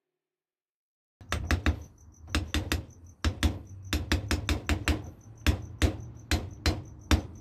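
Rapid, irregular clicks and knocks of metal as a brake caliper and its small parts are handled and worked by hand, starting about a second in.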